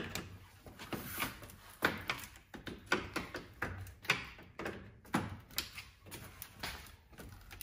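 Chrome plastic front kidney grille of a BMW G20 3 Series and its plastic retaining clips clicking and knocking as the grille is worked loose from its holders by hand. A quick, irregular run of sharp plastic clicks.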